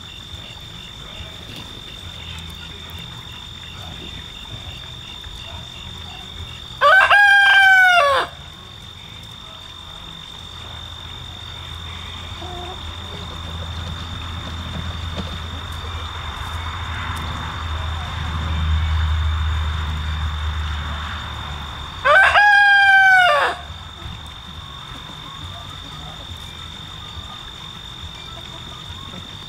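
Rooster crowing twice, about fifteen seconds apart, each crow a short call of just over a second. Under it are a steady high-pitched whine and a low rumble that swells and fades in the middle.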